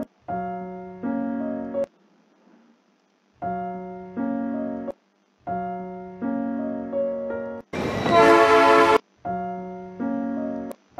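Electric piano playing a short two-chord phrase over and over, with brief gaps between repeats. About eight seconds in, a loud train whistle blast of about a second cuts in between the phrases.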